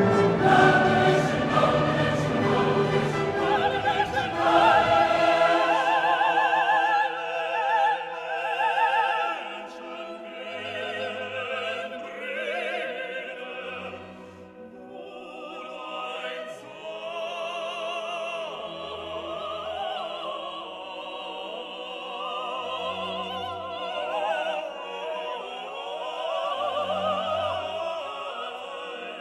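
Classical music: operatic voices singing with a wide vibrato over an orchestra, loud and full for the first few seconds, then quieter.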